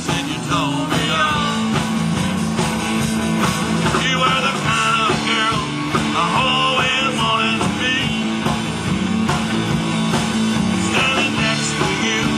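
Live rock band playing a song: electric guitars over a drum kit, with a wavering lead melody line above a steady low accompaniment.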